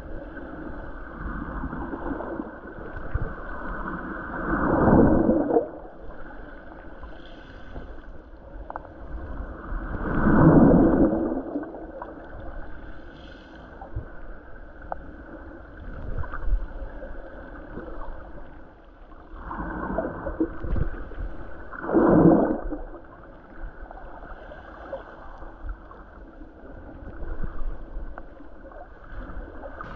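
Moving water heard from below the surface: a muffled rushing and gurgling that swells into loud surges a few times and then fades back.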